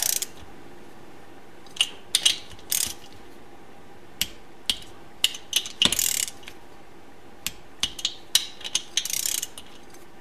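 Ratchet wrench clicking in short, separate bursts while snugging the three 6 mm bolts of a motorcycle cam chain tensioner.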